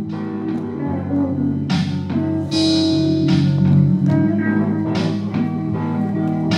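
Guitar music: guitar chords struck every second or so over a low bass part.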